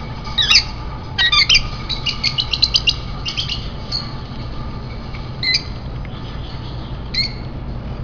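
Caged parrots calling: sharp squawks in the first second and a half, a quick run of short chirps about two seconds in, then scattered single chirps.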